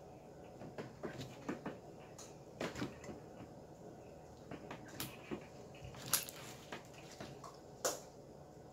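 Clear slime being squeezed and worked by hand: faint, irregular pops and clicks, with a few louder pops about five, six and eight seconds in.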